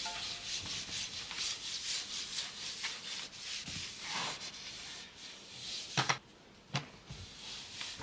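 A cloth wiping a wooden bedside-table top in quick back-and-forth swishing strokes. Two sharp knocks come about six and seven seconds in.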